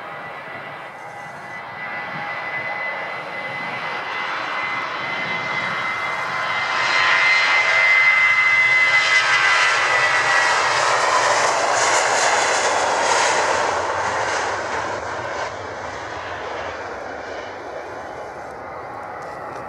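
Airbus A321-200's twin jet engines at takeoff thrust during the takeoff roll. A high steady whine rides over a rushing noise that swells as the airliner passes. The whine drops out about halfway through and the sound eases off as it rotates near the end.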